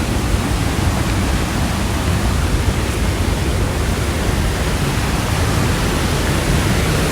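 Waterfall: the steady rush of a large fall of creek water heard close, a full, even noise heaviest in the low end.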